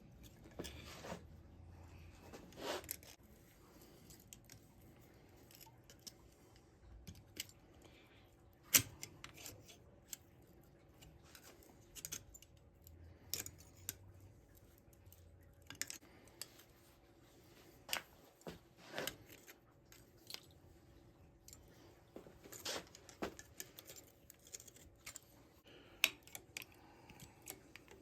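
Scattered light clicks, scrapes and clinks of a thin sheet-metal license plate being bent and folded into rose petals, with one sharper click about nine seconds in.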